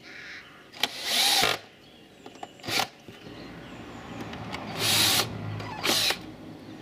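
Cordless drill-driver running in short bursts, driving screws into the metal cover of a UPS battery module: a longer burst about a second in, a brief one near the middle and two more towards the end.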